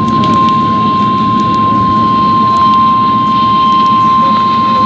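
NOAA Weather Radio's 1050 Hz warning alarm tone, one steady unbroken tone, heard through heavy radio static with faint crackles.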